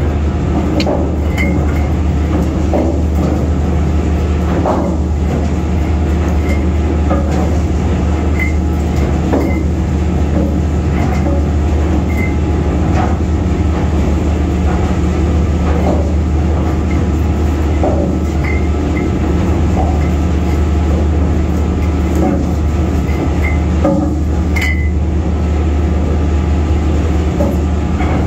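Heavy anchor chain coming down into the chain locker as the anchor is heaved up: metallic clanks of links dropping onto the pile every second or two, over a loud, steady low rumble.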